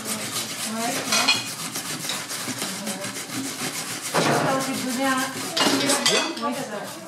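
Metal spoon clinking and scraping against a glass bowl and stainless steel mixing bowls as dressing is spooned over shredded cabbage and carrot salad, many small clinks in a row.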